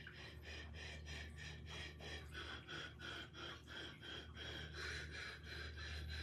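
A hand-held gong ringing faintly and wavering, its high metallic tones pulsing about three or four times a second as it swings while being carried by its handle, over a low steady hum.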